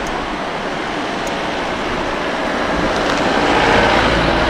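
Steady rushing noise of river water. A road vehicle approaches over it and grows louder in the second half.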